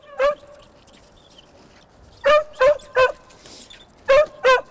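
Rat-hunting dogs barking in short, high-pitched barks: one just after the start, a quick run of three about two seconds in, then two more near the end.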